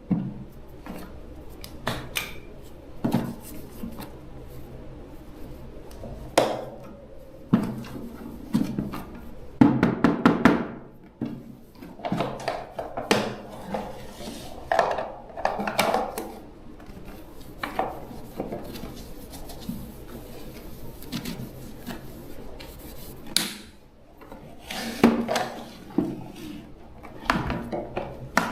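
Irregular clinks, taps and knocks of hand tools and small hard parts being handled and fitted.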